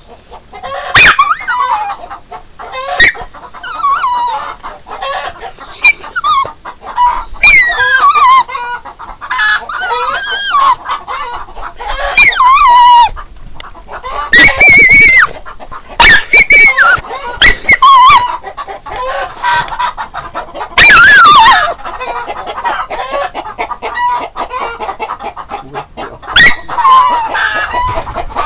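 Chickens clucking and squawking in a coop, a run of short calls with several loud, harsh squawks around the middle and again near the end.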